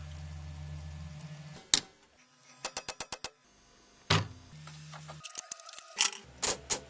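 Typewriter keys clacking, with a quick run of about six strokes in the middle and single sharp strokes around it, mixed with low electronic hums that the keystrokes trigger through an Arduino and Pure Data setup.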